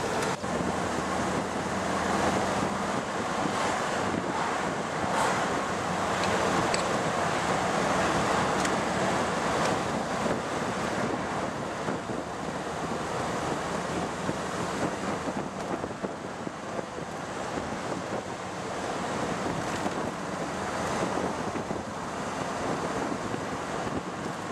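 Steady rush of wind and road noise from a 1978 Triumph Spitfire 1500 driving along a country road, with its four-cylinder engine faintly underneath.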